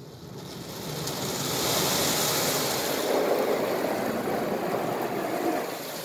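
High-pressure water jets of a PDQ Laserwash 360 Plus touchless car wash spraying the car, heard from inside the cabin: a rush of spray that grows louder over the first two seconds and eases off near the end.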